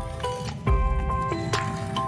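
Background music: a melody of held electronic notes over a thumping kick drum.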